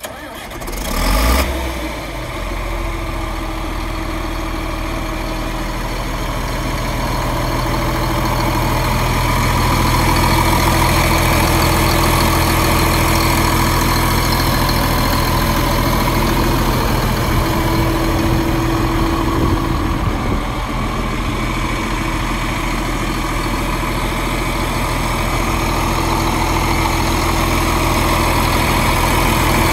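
John Deere 4555 tractor's six-cylinder diesel engine idling steadily, growing louder over the first several seconds and then holding even. There is a short louder burst about a second in.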